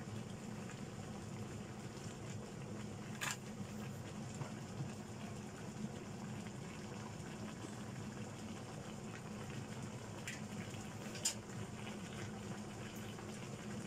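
Chicken pieces sizzling and bubbling in their own juices in a non-stick frying pan, with a sharp pop about three seconds in and a louder one near the end.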